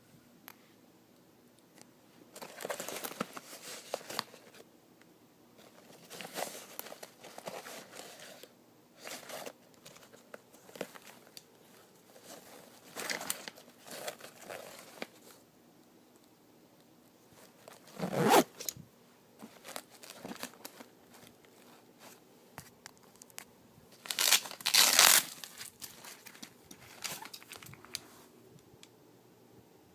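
Gear being handled: irregular bursts of ripping, zipping and crinkling, like Velcro, zips and fabric being worked. The loudest bursts come a little past halfway and again late on.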